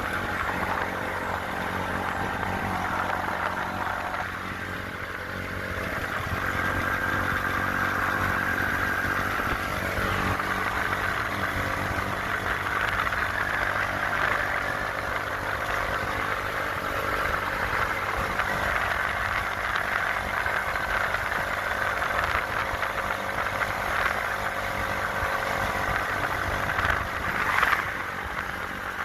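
Vehicle engine running steadily, with a brief louder swell near the end.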